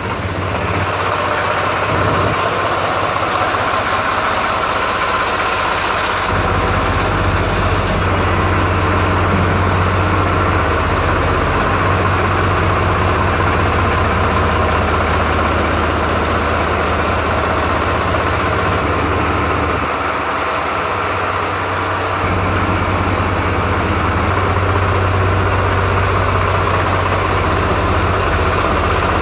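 Swaraj 735 XT tractor's three-cylinder diesel engine idling steadily.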